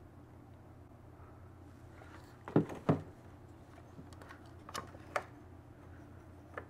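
Handling noise from the plastic housing and parts of a Stihl BR800 backpack blower. There are two sharp knocks a little after two and a half seconds in and a few lighter clicks later, over a low steady hum.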